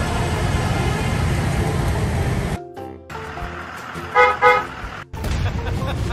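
Steady road and traffic rumble as an electric city bus moves past close by, cutting off sharply. Then two quick, loud horn toots, about a third of a second apart, and music with a regular beat starting near the end.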